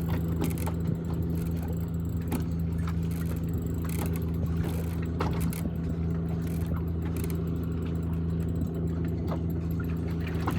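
Boat's outboard engine idling with a steady low hum, with scattered light clicks and knocks over it.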